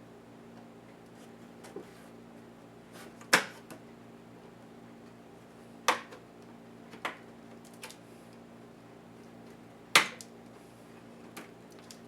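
Sharp, irregular clicks and taps of small plastic and metal parts being handled as an ASUS U43JC laptop is taken apart by hand. Five loud clicks stand out among fainter ticks, over a steady low hum.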